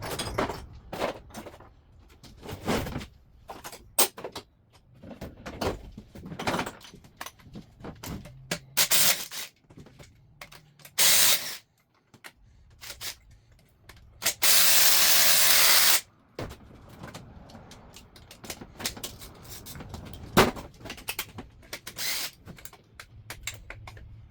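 Hand tools working on bolts and parts of a Subaru EJ251 engine being torn down, a run of quick clicks, clinks and knocks sped up to double speed. Loud hissing bursts cut in: a short one about 11 s in and a steadier one lasting about a second and a half a few seconds later.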